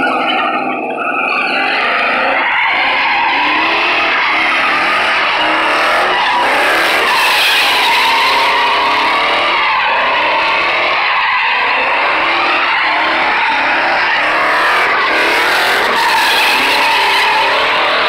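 Chevrolet Silverado pickup doing donuts, engine held at high revs that rise and fall, with its rear tyres screeching continuously.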